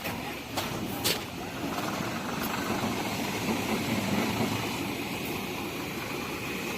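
Engine of a paddy cutting machine running steadily, with two sharp clicks about a second in.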